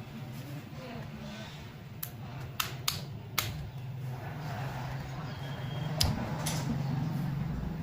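Small sharp clicks and taps of hand tools on a smartphone's housing during disassembly, about six in all, over a steady low hum.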